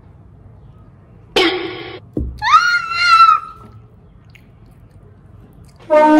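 Calls from an animal: a short call about a second and a half in, then a longer high call that rises and holds, and another short call near the end, with a low thump between the first two.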